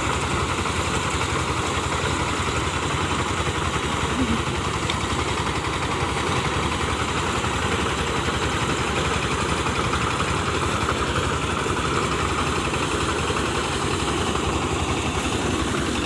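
Motorized rice threshing machine running steadily, beating the grain off the rice stalks very fast.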